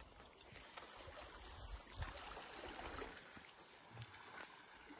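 Faint water lapping against a rocky shore, with a few soft knocks.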